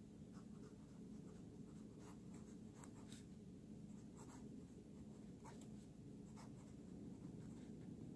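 Moonman Wancai Mini fountain pen writing cursive on paper: faint, irregular scratches of the nib with each stroke, over a low steady hum.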